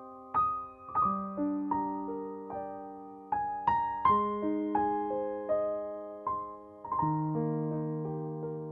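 Background piano music: single notes and chords struck every half second or so and left to ring out.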